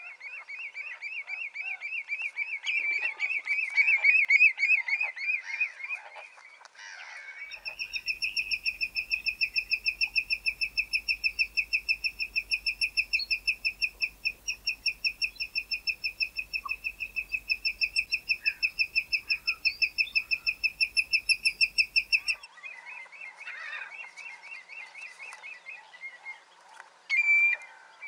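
Common redshank display song: long runs of rapid, evenly repeated piping notes, several a second. There is a short break about seven seconds in, then a louder, cleaner run of about fifteen seconds, then softer calls near the end.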